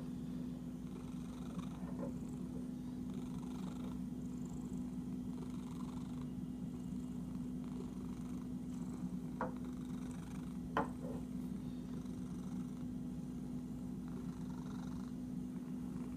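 Domestic cat purring steadily while being scratched, with a couple of short sharp clicks about nine and eleven seconds in.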